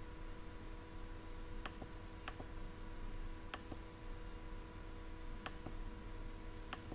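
Computer mouse clicking: about six short, sharp clicks a second or so apart, over a faint steady hum.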